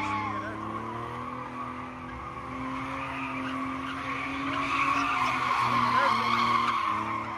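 Volvo sedan spinning donuts: tires squealing and skidding continuously over a steadily running engine held at high revs. The engine pitch steps up about two seconds in, and the tire squeal grows louder around five to six seconds in.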